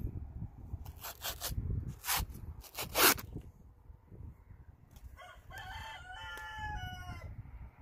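A rooster crowing once about five seconds in, one long call of several stepped notes. Before it, over a low rumble, come three short hissing rushes of noise, the loudest about three seconds in.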